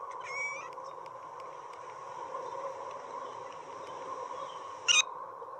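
Short, high cat squeaks: a brief chirp just after the start and a louder one near the end. Under them runs a steady, eerie electronic hum with a high hiss, from sonified recordings of the planets made in space.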